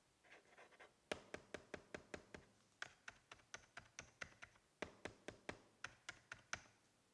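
Keys of a Spirit of Gamer Pro K5 gaming keyboard being pressed one after another: a run of sharp clacks, about five a second, with a short break midway.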